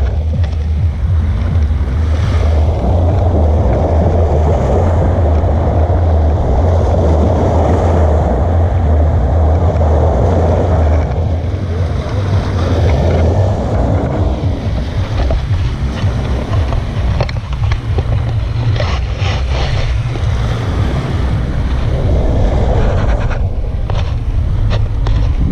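Small sea waves breaking and washing onto a pebble shore, swelling and fading every few seconds, over a heavy, steady rumble of wind on the microphone.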